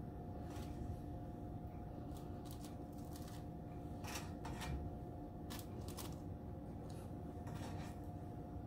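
Scattered light clicks and rustles of hands setting shrimp onto appetizer bites, over a steady faint hum.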